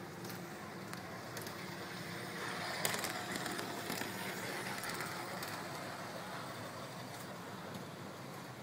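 LGB 2030E G-scale model electric locomotive running on its track. The hum of its motor and the rumble of its wheels on the rails grow louder as it passes close by about three seconds in, with a click near the loudest point, then fade.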